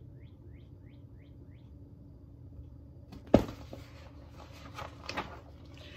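A hardcover picture book being moved and set aside: one sharp knock about three seconds in, then rustling and a few lighter knocks of handling. Before that there is a quick run of faint, short high chirps.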